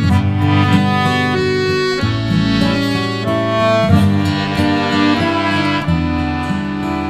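Instrumental background music: a tune of held, sustained notes over changing chords.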